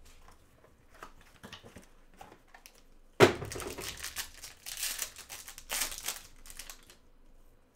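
A foil trading-card pack wrapper being torn open by gloved hands: light rustling at first, then a sudden loud rip about three seconds in and a few seconds of foil crinkling that stops near the end.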